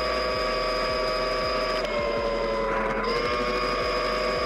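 Steady high whine of the electric dirt bike's QS138 motor and drivetrain running at speed. Its pitch sags slightly about two seconds in and picks back up about a second later.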